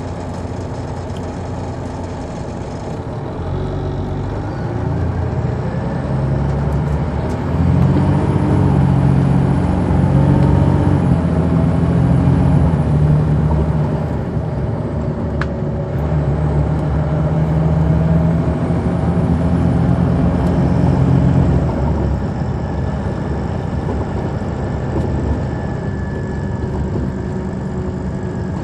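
Detroit Diesel Series 60 diesel engine of a 2002 MCI D4000 coach, heard inside the cabin from the rear seats, pulling under load: it builds up, eases off about halfway through, builds again and eases off about three-quarters through. A faint high whine rises and falls along with it.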